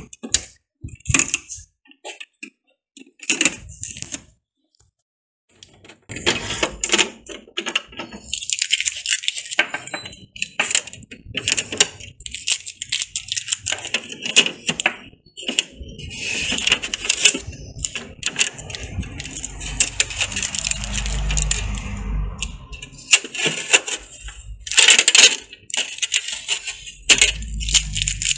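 Blue shipping tape being peeled off the plastic body of an Epson EcoTank L3210 printer: repeated crackly tearing strips and small plastic clicks, with a brief lull about five seconds in and a few low thuds of handling later on.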